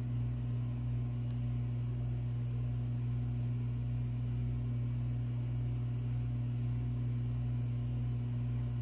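A steady low electrical hum under faint hiss, unchanging throughout, with no distinct handling sounds standing out.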